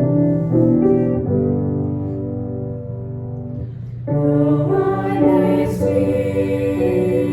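Closing music of a worship service: held chords with choir-like singing and keyboard. It dips briefly about three and a half seconds in, then swells to a fuller, brighter sound about four seconds in.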